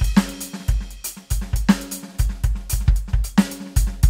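Outro music with a steady drum-kit beat: kick, snare and cymbals over bass notes.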